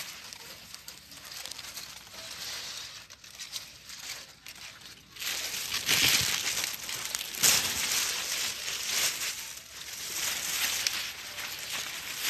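Luffa vine leaves rustling and crumpling as they brush against the phone. Sparse crackling at first, then denser and louder rustling from about five seconds in.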